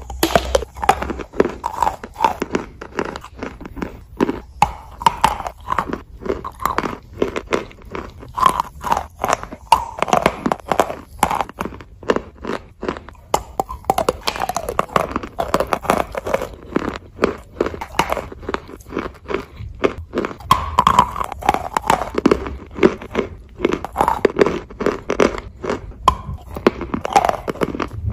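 Repeated bites and chewing of wet chalk coated in chalk paste: dense, irregular wet crunches as the chalk breaks between the teeth.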